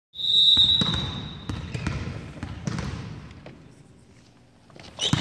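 Referee's whistle blown once, a steady high blast lasting about a second and a half, then a volleyball being hit and bouncing in a large gym, a few echoing smacks and thuds that grow fainter. A short high squeak comes near the end.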